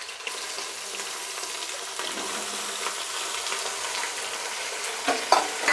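Onions, curry leaves and mustard seeds frying in hot oil in an aluminium pressure cooker as sliced radish and brinjal are added: a steady sizzling hiss.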